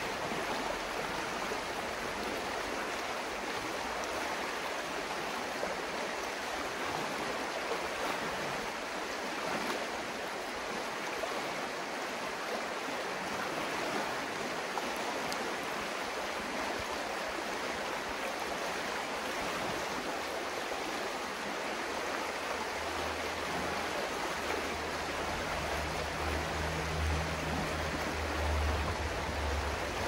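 Shallow river babbling, a steady rushing wash of flowing water. About two-thirds of the way through, a low rumble joins underneath it and grows a little toward the end.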